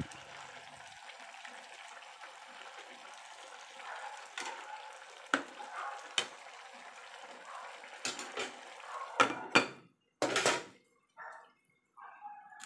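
A metal spoon clinking and scraping against a cooking pot as chayote and potato are scooped out, over a steady hiss from the simmering pot and gas burner. Near the end there is a louder clatter as the pot is covered with its glass lid.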